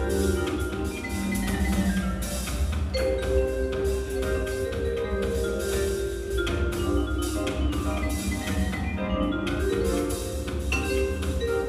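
Live-coded computer music from a laptop: many short pitched notes in quick succession over a steady low bass.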